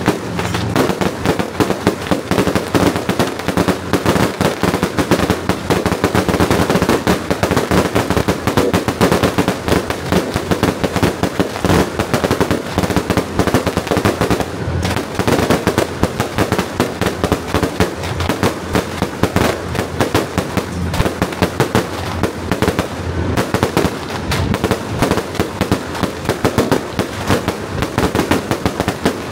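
Firecrackers going off in a long, dense, unbroken crackle of rapid bangs, the kind set off in strings during a Taiwanese temple procession.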